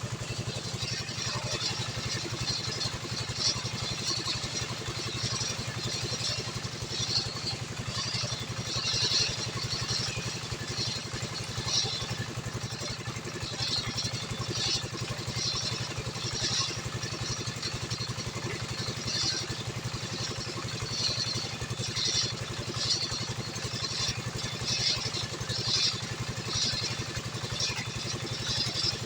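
Stihl 070 two-stroke chainsaw running steadily at high revs, held at a constant pitch, with a flickering high hiss over it as the chain cuts through hardwood.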